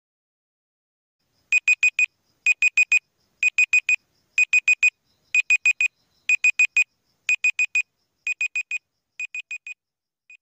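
Digital timer alarm beeping: groups of four quick high-pitched beeps, about one group a second. The last two groups are quieter, and a short blip comes near the end.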